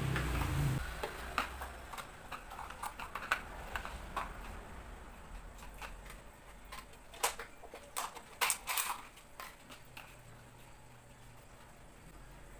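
Thin clear plastic cups and containers clicking and clattering as they are handled and set down on a table: a scatter of sharp light taps, busiest about seven to nine seconds in.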